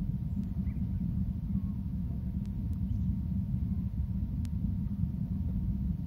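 Steady low rumble of wind buffeting an outdoor nest-cam microphone, with a faint steady hum and a few faint clicks.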